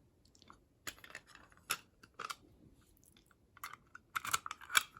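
Fire-Lite BG-8 manual fire alarm pull stations being reset with their key: small plastic-and-metal clicks and rattles of the key in the lock and the mechanisms, scattered at first, then a quick run of sharper clicks near the end.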